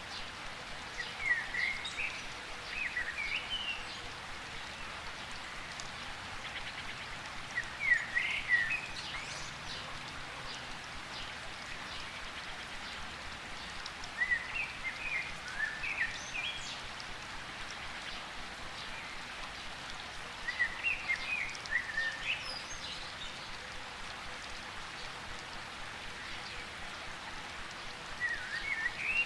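Steady rain falling, with a bird singing short, quick phrases of rising and falling notes five times, about every six seconds.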